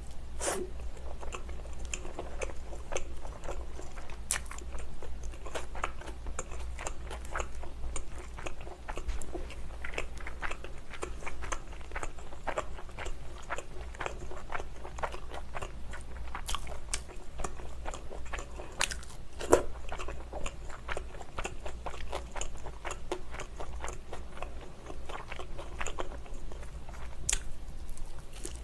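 Close-miked biting and chewing of thin-crust pizza: a steady run of small crunches and wet mouth clicks, with the sharpest crunch about two-thirds of the way through. A faint steady low hum lies underneath.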